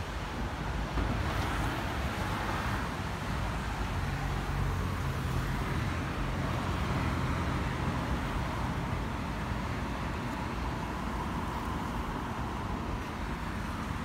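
Steady low rumble of distant road traffic, with a low engine hum that sits under it for a few seconds in the middle.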